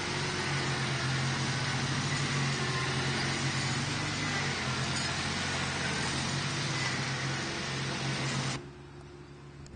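Small garden tractor engine running steadily, a low hum under a broad hiss; the sound cuts off suddenly near the end.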